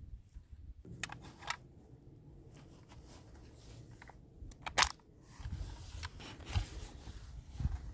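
Two-barrelled metal-and-plastic toy cap rifle being handled: a series of light mechanical clicks, with one much louder, sharp snap about five seconds in.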